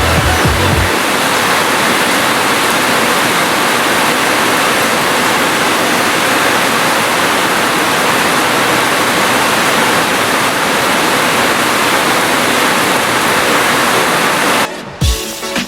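Steady heavy rain, a dense even hiss with no breaks. It cuts off suddenly near the end and music with a beat comes in.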